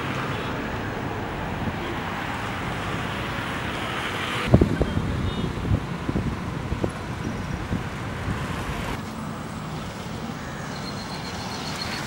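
Road traffic noise: a steady wash of passing cars and motorbikes, with a few scattered knocks about halfway through.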